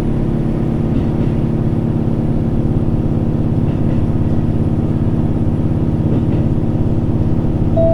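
JR Hokkaido H100 diesel-electric railcar heard from inside the passenger cabin, its diesel engine running with a steady drone.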